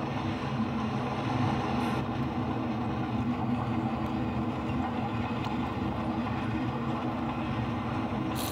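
HO scale model freight train running past, a steady rolling rumble of wheels on track with a low, even hum. A brief click comes near the end.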